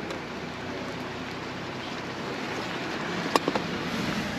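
Truck driving along a snow-covered road: steady tyre and road noise, growing slightly louder, with a sharp click or two about three and a half seconds in.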